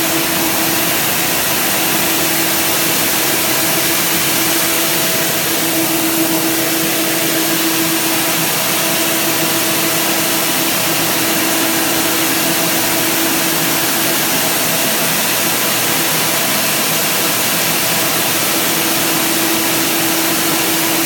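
Four-colour packing-tape printing machine running steadily: an even rushing hiss of motors and air blowers with a constant hum tone over it.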